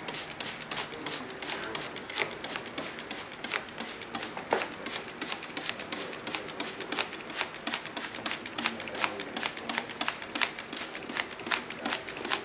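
Rapid, irregular clicking and ticking, several clicks a second.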